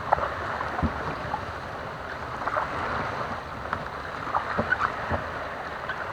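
Kayak being paddled on flat water: steady water swishing and dripping around the paddle and hull, with a few short light knocks and splashes scattered through.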